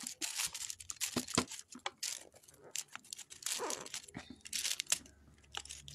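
Paper wrapping and boxed wallets handled by hand: irregular rustling and crinkling with scattered light clicks and knocks.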